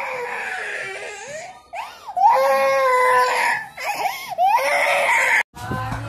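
Toddler crying: three long cries with short breaks between them. About five and a half seconds in, the crying cuts off sharply.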